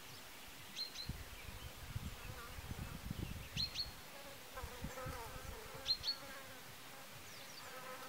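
A flying insect buzzing close by, its pitch wavering, mostly in the second half. Three short, high two-note bird chirps come about every two and a half seconds.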